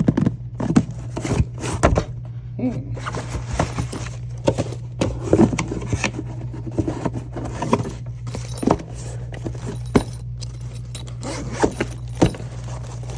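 A handgun being handled: irregular clicks, taps and scrapes of its parts, over a steady low hum.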